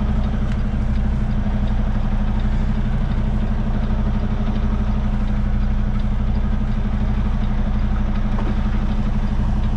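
Semi truck's diesel engine running steadily at low speed, heard from inside the cab as an even low drone.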